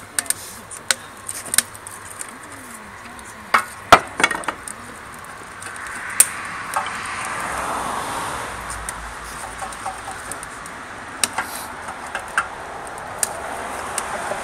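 Split sticks of firewood knocking and clattering as they are loaded by hand into the feed tube of a LongHorn rocket stove: a string of sharp wooden knocks, the loudest about four seconds in. A broad rushing sound swells and fades in the middle.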